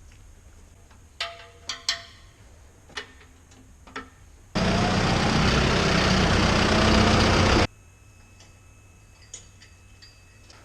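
A few sharp clicks with a short metallic ring, then about three seconds of loud tractor engine and machinery noise that starts and cuts off abruptly.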